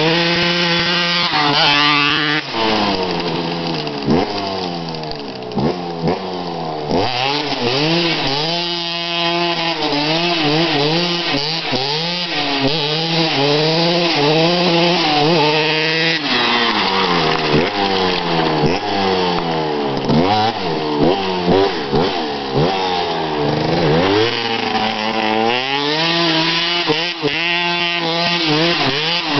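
Dirt bike engine revved hard over and over, its pitch surging up and down in quick swings while the rear wheel spins in loose dirt; the revs are held steadier near the start and again in the last few seconds.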